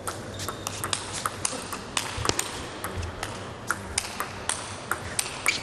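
Table tennis rally: a celluloid ball being struck back and forth, making a quick, irregular series of sharp clicks and short pings off the rubber-faced paddles and the table.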